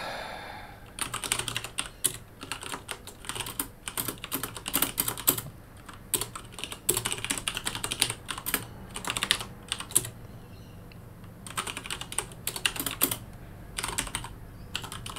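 Typing on a computer keyboard: bursts of rapid key clicks, with a pause of a couple of seconds about ten seconds in.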